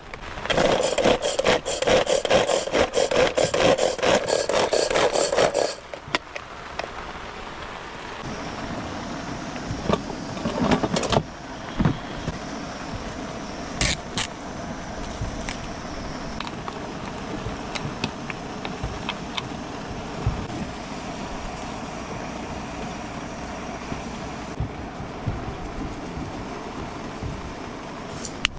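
A handheld plastic food container worked rapidly by hand to mix its contents finely, rattling for about five and a half seconds. Then come plastic cling wrap crinkling and being handled, and a steady hum underneath.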